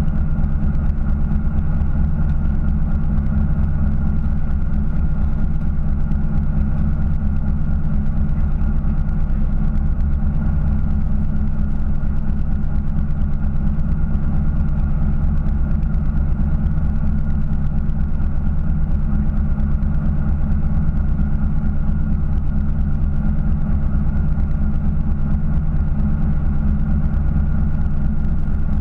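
Fishing boat's engine idling steadily, a constant low drone with no change in pitch.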